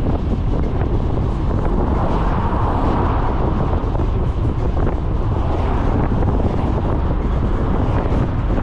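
Steady wind rush buffeting a microphone mounted on the outside of a moving van, over a constant low rumble of the van driving along the road.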